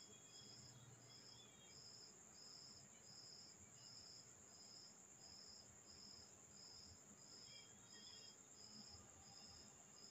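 Near silence: room tone with a faint high chirp repeating evenly about twice a second over a steady faint high whine, like a cricket calling.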